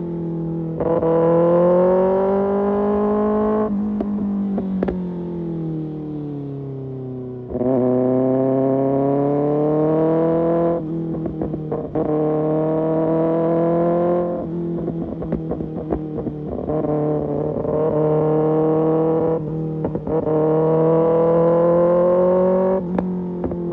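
Kawasaki ZX-6R inline-four through an Arrow Pro Race exhaust, opened up about four times with the pitch climbing each time. Each pull ends abruptly as the throttle is shut, followed by popping and crackling from the exhaust on the overrun.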